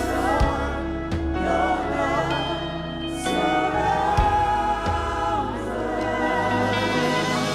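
Gospel worship singers and choir singing a slow praise song over instrumental accompaniment, holding long notes.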